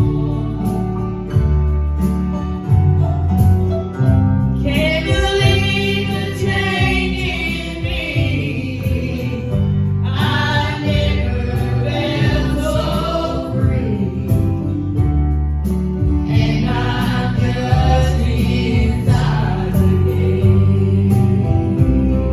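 Gospel music: a singing group sings in phrases over instrumental backing with a strong bass line and a steady beat.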